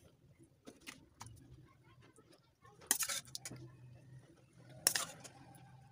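Steel spoon scraping and knocking against a kadai as cooked rice and prawn masala are spooned in for layering: a few light clicks, then two louder scrapes about three seconds and five seconds in.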